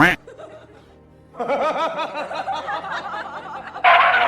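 Music with laughter-like sounds: a short loud rising cry at the start, then a run of rapid, wavering pitched calls from about a second and a half in, and a loud steady tone near the end.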